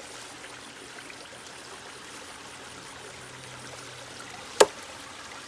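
Steady rushing, water-like hiss with a faint low hum under it, broken by a single sharp crack about four and a half seconds in.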